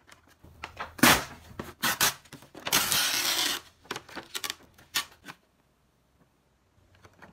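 The lid of a large instant-noodle tray being peeled open, the packaging crackling and crinkling: sharp crackles about a second and two seconds in, a longer peeling rustle around three seconds in, then a few scattered clicks.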